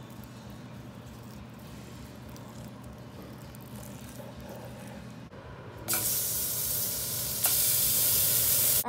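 Raw New York strip steaks sizzling in a hot, oiled frying pan: a loud, even hiss that starts about six seconds in, grows louder a moment later and cuts off suddenly. Before it, only faint background noise.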